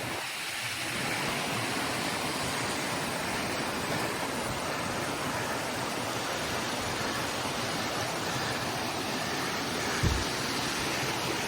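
Rocky Falls' water rushing over the rocks in a steady, even roar. A single low thump comes about ten seconds in.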